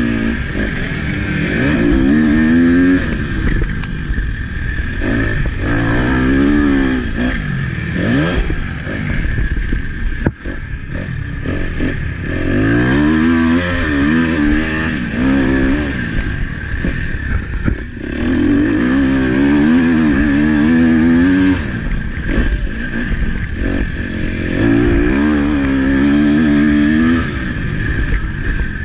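KTM motocross bike's engine revving hard and dropping off again and again as the rider accelerates, shifts and rolls off for corners, heard close up from a helmet chin mount with wind noise over it.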